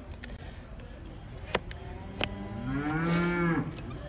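A large farm animal's long, low call, its pitch rising and then falling, starting about two seconds in and lasting about a second and a half. Before it come a few sharp clicks from the hoof knife cutting the donkey's hoof.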